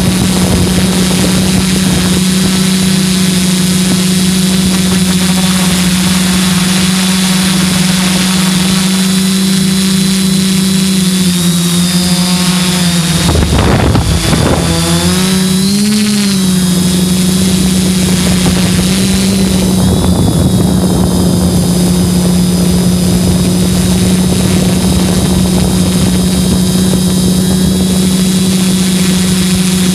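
Hexcopter's six electric motors and propellers running with a steady hum in flight, picked up close by a phone mounted beneath the craft. About halfway through, the pitch dips and wavers for a couple of seconds as the motor speeds change, then steadies again.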